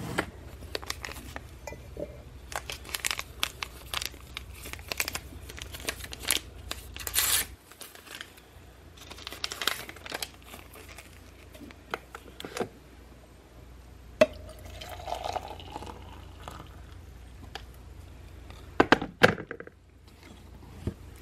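Tea being made in a glass mug: scattered clinks, clicks and paper crinkling and tearing, then hot water poured from an electric kettle into the mug for a second or two, rising in pitch as the mug fills. Two sharp clicks come near the end.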